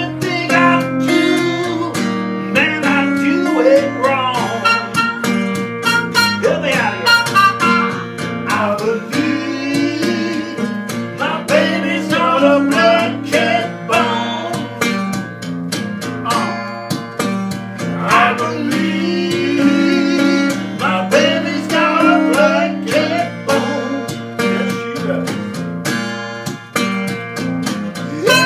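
Acoustic blues: an open-tuned acoustic guitar plays a repeating bass figure while a voice sings over it. A trumpet comes back in near the end.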